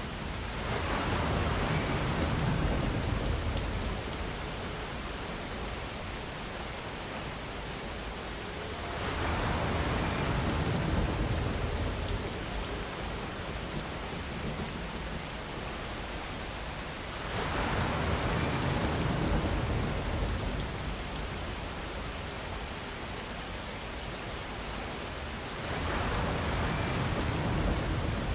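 Steady rain falling, with distant thunder rumbling up four times, evenly about eight seconds apart, each swell lasting a few seconds.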